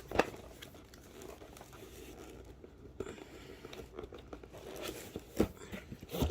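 A tightly packed cardboard box being worked open by hand: crinkling, tearing and scraping of the packaging with scattered small clicks, and a sharp knock just after the start and two more near the end.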